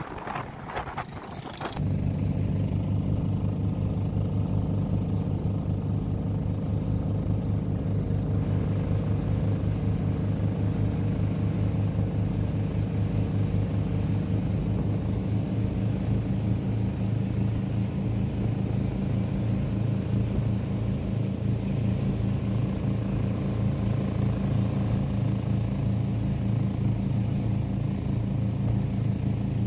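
Motorboat engine running at a steady speed, a low, even drone. It cuts in abruptly about two seconds in, after a few seconds of wind buffeting the microphone.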